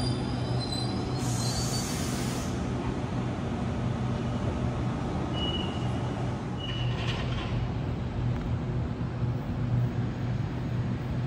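Sydney Trains double-deck electric train pulling out of the platform: a steady electric hum with a brief hiss of air about a second in and two short high squeaks around the middle.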